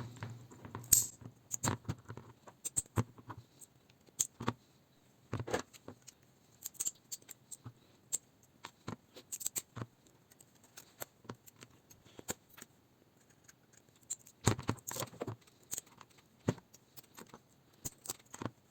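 Irregular metallic clicks, snips and light clatter of 18650 cells and hand tools being handled as a laptop battery pack is taken apart, with a sharp knock about a second in and a cluster of louder knocks near fourteen and a half seconds.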